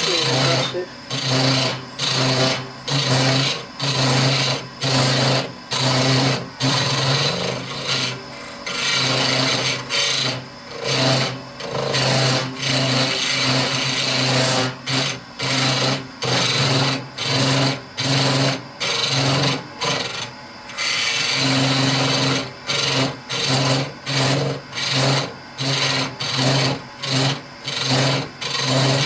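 Hollowing cutter on a bar, held in a homemade hollowing rest, cutting inside a spinning horse chestnut hollow form. It goes in short repeated scraping strokes, a little more than one a second, with a few longer cuts in between.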